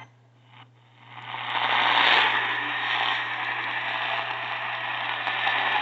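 Radio receiver static: a rough hiss that swells in about a second in and then holds steady, over a constant low electrical hum.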